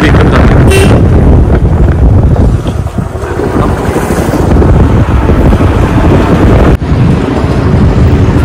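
Loud wind rumble buffeting the microphone of a moving vehicle, with road and engine noise beneath.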